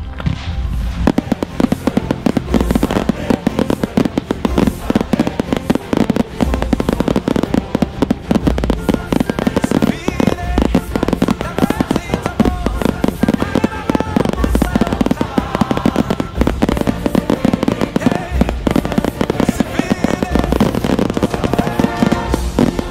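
Fireworks firing and bursting in rapid, continuous volleys, many reports a second, over music with a heavy, steady bass beat, all starting at once right at the beginning.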